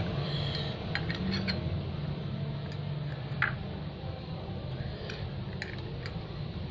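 Metal spoon and fork clinking and scraping on a glass plate while cutting into a pancake: a scattering of light clicks, the sharpest about three and a half seconds in, over a steady low hum.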